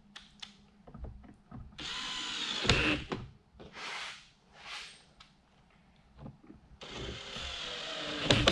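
Cordless drill driving two screws into the plastic housing of a truck's heater and AC blend-door box. The motor runs for about a second, gives two short spurts, then runs again for about a second and a half near the end, with small handling clicks in between.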